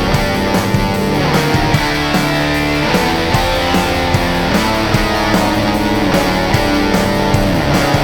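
Background music: an electric-guitar rock track with a steady drum beat.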